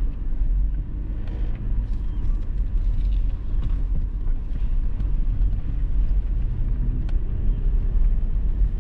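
Toyota 4Runner driving, a steady low rumble of engine and tyres with a few faint clicks. It runs free of the tapping noise that the driver had traced and fixed.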